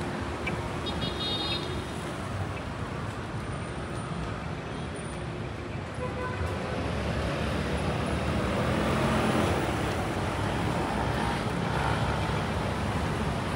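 City street traffic: a steady wash of passing cars, with one vehicle going by louder about eight to ten seconds in. A short high beep sounds about a second in.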